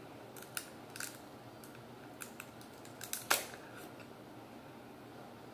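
King crab leg shell cracking and snapping as it is broken open by hand: a string of sharp cracks, the loudest a little past three seconds in.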